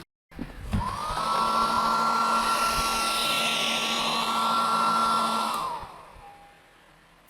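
Hair dryer starting up about a second in, running steadily with a high motor whine over a rush of air, then winding down after about five seconds.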